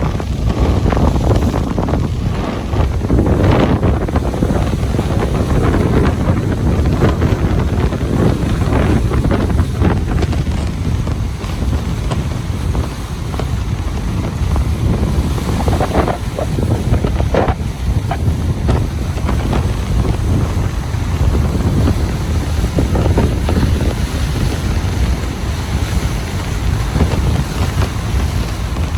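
Ocean surf washing onto a beach, a continuous rush that swells and eases, with wind buffeting the microphone.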